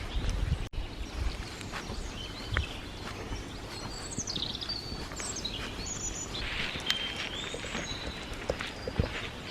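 Woodland birds chirping, with a few quick falling trills about four to six seconds in, over footsteps on a forest path.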